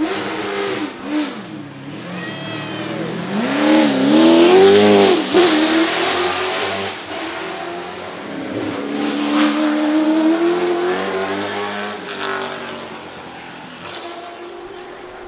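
Holden VE Commodore V8 Supercar's naturally aspirated 5.0-litre V8 revving at the start line, then accelerating hard away. Its pitch rises and drops several times as it changes gear, loudest about four to six seconds in, then it fades into the distance.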